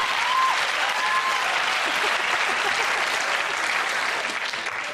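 Studio audience applauding after a joke, dying down near the end.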